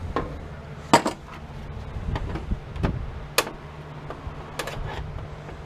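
A handful of sharp, irregularly spaced metal taps and clicks as a screwdriver is worked against brass bushings to knock them out of an electric typewriter's frame, over a faint low steady hum.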